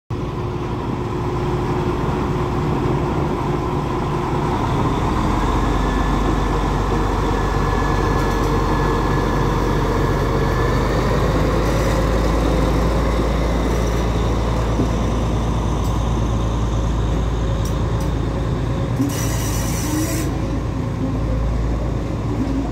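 Diesel locomotive pulling a passenger train away from the platform: the engine runs loudly and steadily, then the carriages roll past on the rails. A thin high tone rings for several seconds early on, and there is a short hiss near the end.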